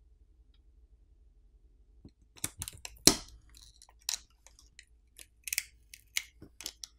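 Fingers and nails working the flex cables on an opened smartphone's midframe: irregular small clicks and crackles, starting about two seconds in.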